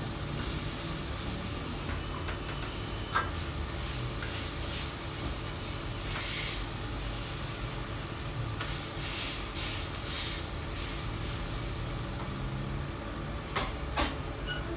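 Chicken pieces sizzling on a steel flat-top griddle, a steady hiss, while a metal spatula scraper works them on the plate; a sharp metal click about three seconds in and a few more near the end.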